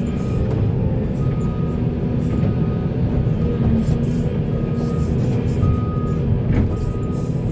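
Volvo excavator's diesel engine running steadily at working load, a dense low rumble, with a high tone sounding on and off every second or so.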